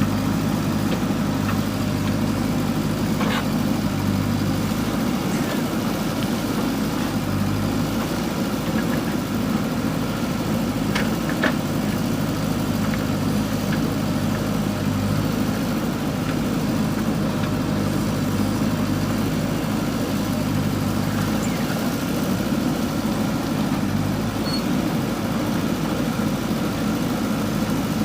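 JCB 3DX backhoe loader's diesel engine running steadily under work, with a few sharp metallic knocks about 3 and 11 seconds in.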